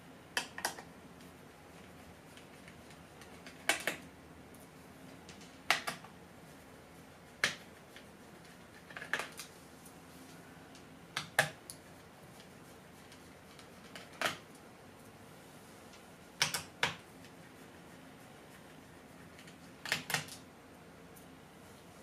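Small screwdriver clicking against the screws and plastic bottom case of a laptop as the screws are backed out one by one: sharp clicks, often in pairs, every couple of seconds.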